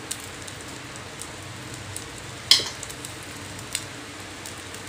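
Egg omelette batter frying in oil in a small steel tempering ladle: a steady sizzle with scattered small crackles. A single sharp tap about two and a half seconds in.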